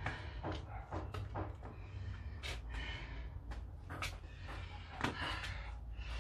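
A person breathing hard while resting from burpees, with a few short, breathy exhales about two and a half and five seconds in, among light knocks and clicks of movement.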